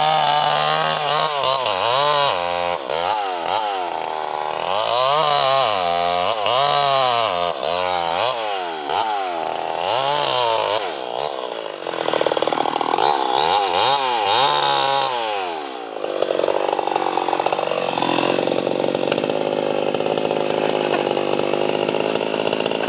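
Two-stroke chainsaw cutting mahogany wood. Its engine speed rises and falls over and over, about once a second, then from about two-thirds of the way in it holds a steady high pitch.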